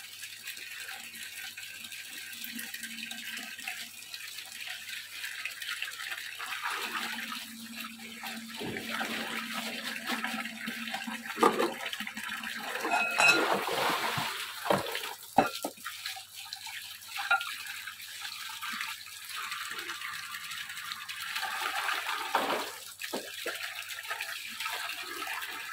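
Tap water running and splashing into a plastic basin while small crabs are rinsed and stirred by hand in a basket. A few sharp clacks come around the middle as the crabs and containers are knocked about.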